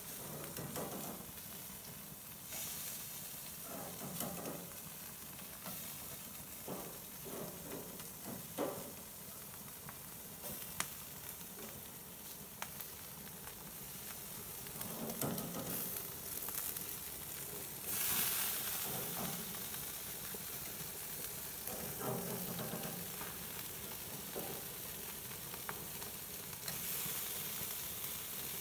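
Salmon steaks sizzling on a gas grill's grates over open flame: a steady hiss that swells louder several times, most strongly about two-thirds of the way through, with a few sharp pops.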